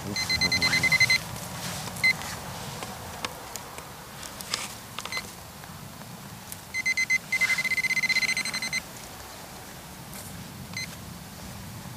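Garrett handheld pinpointer beeping in quick pulses as its tip is pushed through loose soil, the rapid beeping signalling a metal target close by. The beeping comes in bursts: about a second at the start, a short blip near two seconds in, and a longer spell of faster beeping about seven seconds in. Soft scraping of soil and stubble sounds between the bursts.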